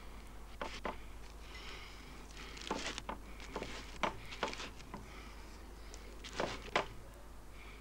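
Stiff-bristled paintbrush dabbed and dragged through thick paint on canvas: short brush strokes in uneven clusters, over a low steady hum.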